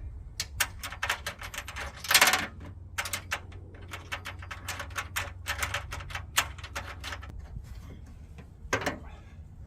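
Ratchet wrench clicking in short uneven runs while mounting bolts are tightened, with one louder metallic knock about two seconds in.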